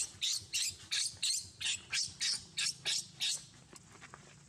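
Baby macaque squealing in a run of about a dozen short, shrill cries, about three a second, stopping about three and a half seconds in. It is a distressed baby protesting while its mother holds it down and grooms it.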